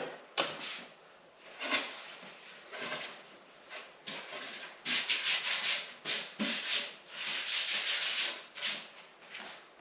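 Rubbing and scraping as a board is pulled out and handled, in a run of irregular strokes: several short ones and two longer drawn-out scrapes in the middle.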